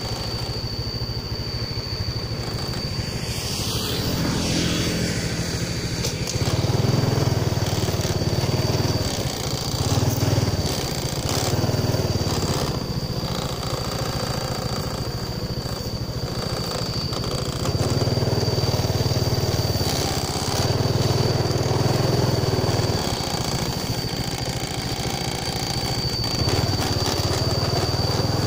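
Small motorcycle engine running as it rides along a road, its note rising and falling every few seconds with the throttle, over a rush of wind and road noise and a steady high whine.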